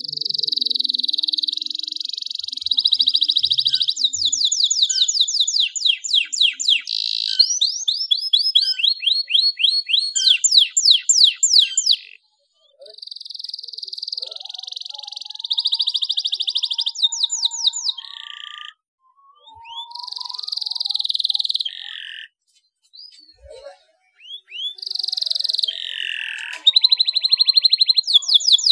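Domestic canary singing: long buzzy rolls alternate with fast trills of rapid down-slurred notes, broken by a few short pauses.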